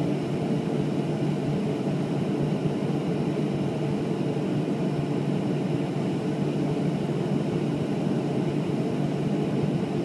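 Steady cabin noise inside a Boeing 737-500 taxiing on the ground, its CFM56-3 jet engines at low thrust giving a deep, even drone that holds the same pitch and level throughout.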